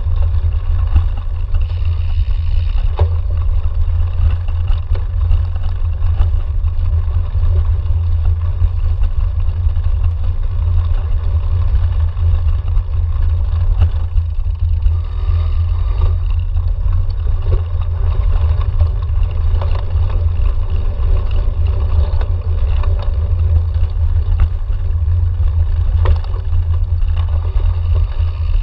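Cyclocross bike ridden over bumpy grass, heard from a handlebar-mounted camera: a steady, loud low rumble of wind and tyre vibration, with scattered clicks and rattles from bumps.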